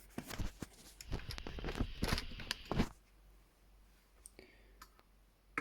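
Handling of tools and metal gun parts: a dense run of irregular clicks and scrapes for about three seconds, then a few scattered clicks.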